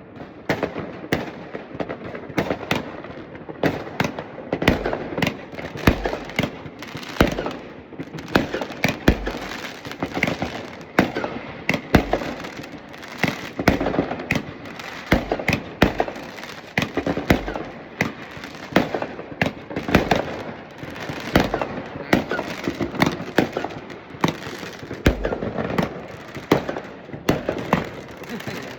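Many fireworks and firecrackers going off at once: a dense, unbroken barrage of sharp bangs and crackles, several a second, with deeper thuds among them.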